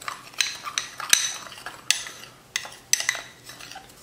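A metal spoon stirring dry spices in a small glass bowl, clinking and scraping against the glass in a string of irregular clinks, each with a brief ringing tone.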